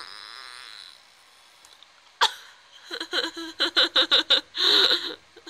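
A person laughing: a quick run of about six short bursts, then one longer laugh, with a single sharp click about two seconds in.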